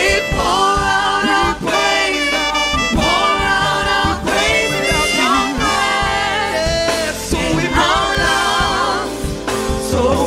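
Gospel worship team singing a praise song in harmony, the voices wavering with vibrato, over keyboard and bass guitar.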